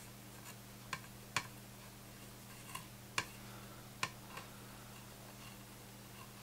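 Soldering iron dragging copper solder wick across circuit-board pads to soak up old solder: about six faint sharp clicks spread unevenly through the first four and a half seconds, over a faint steady hum.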